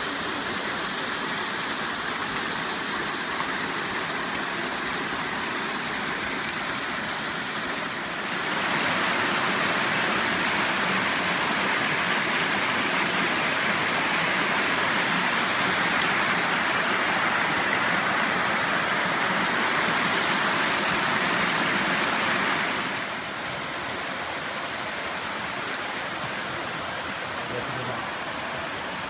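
Dzhurdzhur waterfall's falling water, a steady rushing noise that grows louder about eight seconds in and drops back again about twenty-three seconds in.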